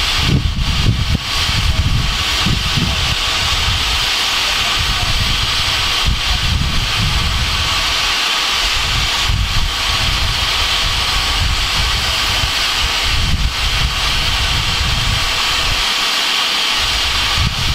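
GWR Saint 4-6-0 No. 2999 'Lady of Legend' standing in steam, giving off a steady hiss of escaping steam over an uneven low rumble.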